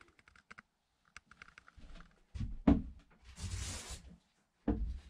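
Handling noises in a small room: a run of light clicks, then two dull knocks about two seconds apart with a short rustling scrape between them, as the foldaway basin unit is moved and handled.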